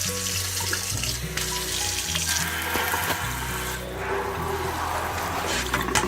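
Tap water running and splashing in a utility sink as a dehumidifier's dust-clogged air filter is rinsed under it, the splash growing and easing as the filter moves in the stream.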